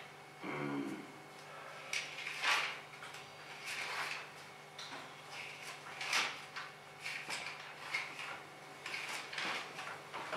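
Paper book pages being leafed through and turned close to a microphone: a series of short rustles every second or two.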